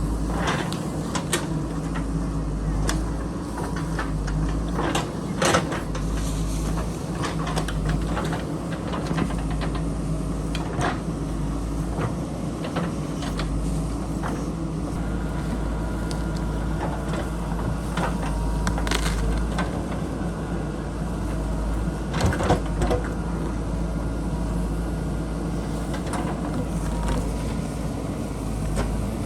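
JCB backhoe loader's diesel engine running steadily under working load, with scattered sharp knocks and clanks from the digging.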